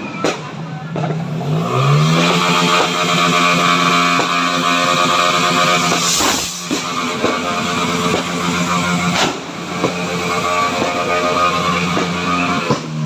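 An engine held at high revs, a steady pitched drone that climbs about two seconds in and then holds. Firecracker bangs go off near the start, about six seconds in (the loudest) and about nine seconds in.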